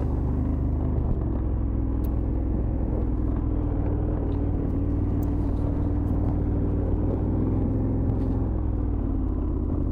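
Adventure motorcycle engine running steadily at an even pace while the bike rolls along on a ride.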